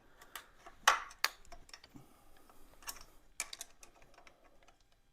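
Scattered light clicks and taps of metal hand tools being handled on a motorcycle engine, with sharper ones about a second in and a quick cluster past the three-second mark.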